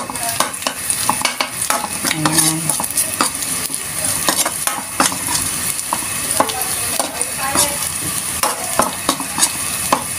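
Onions and garlic sizzling in hot oil in a metal wok, with a steady hiss, while a metal spatula scrapes and knocks against the pan in quick, irregular strokes as they are stirred. The garlic is being browned.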